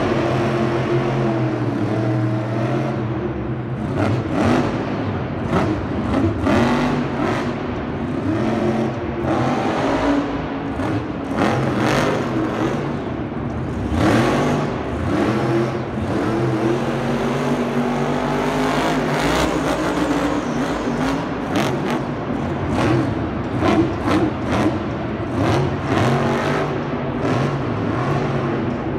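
Monster truck's supercharged V8 engine running and revving, its pitch rising and falling again and again.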